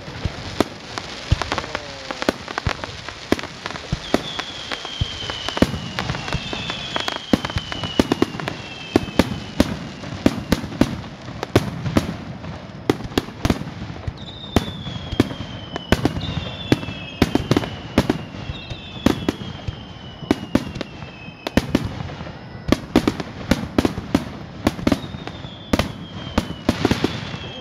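Aerial fireworks shells bursting in a rapid, irregular string of sharp bangs, with shrill whistles gliding downward in pitch every few seconds.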